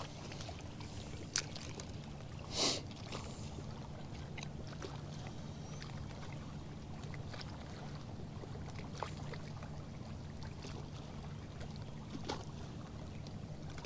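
Steady low hum of a bass boat's electric trolling motor, with a sharp click about a second and a half in and a brief swish near three seconds.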